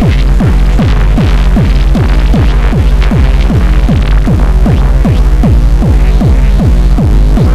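Loud, fast electronic dance music: a kick drum about three to four times a second, each kick dropping in pitch, over a steady deep bass, with hiss-like percussion on top.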